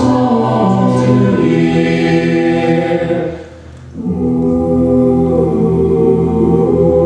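An a cappella vocal group singing held chords in close harmony, with a bass line underneath. The voices break off briefly about three and a half seconds in, then come back in on a new sustained chord.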